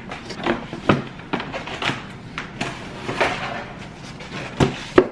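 Unboxing handling noises: packaging rustling with a run of irregular knocks and bumps as the waffle maker is lifted out and handled, two sharper thumps near the end.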